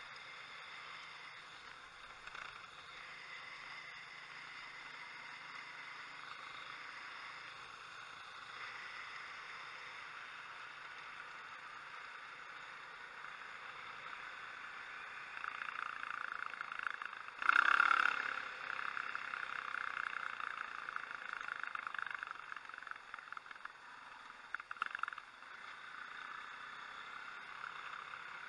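Motorcycle riding, heard from the rider's helmet: muffled engine and wind noise, growing louder about halfway through, with one sharp knock a little past the middle and a few smaller ones later.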